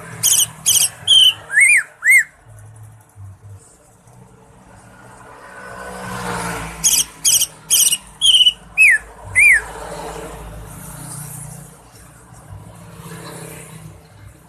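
Cucak ijo (green leafbird) singing: two loud phrases, each a quick run of short, sharp, high notes ending in two arching whistles, the first at the start and the second about seven seconds in.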